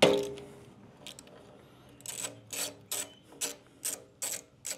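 A socket ratchet wrench on an extension clicks in a steady run of strokes, about two and a half a second from about two seconds in, as it backs out a motorcycle sidestand's pivot bolt. It starts with one loud metallic clank and a brief ring.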